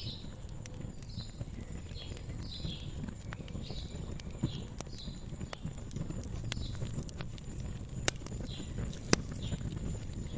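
Wood fire crackling, with scattered sharp pops (the loudest about eight and nine seconds in) over a low rumble, while a bird chirps repeatedly in the background, about once or twice a second.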